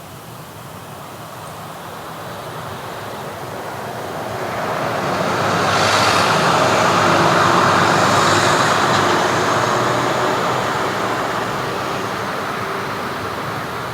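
Street traffic with a motor vehicle approaching and passing close by, its engine and tyre noise building to a peak about six to nine seconds in and then fading away.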